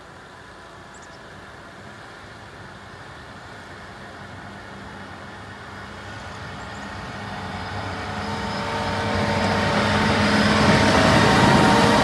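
John Deere motor grader's diesel engine running as the machine plows snow and drives toward the listener, growing steadily louder until it passes close by near the end.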